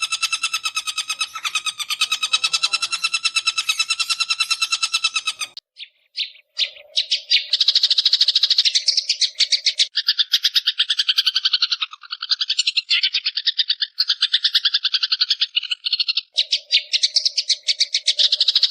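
Long-tailed shrike (cendet) giving continuous rapid chattering calls ("ngekek") in fast-pulsed trills, breaking off briefly about six seconds in before the chatter resumes.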